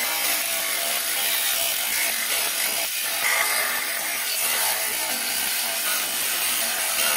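Handheld angle grinder with a thin disc cutting into a steel chrome bumper, a steady high grinding hiss that holds without a break.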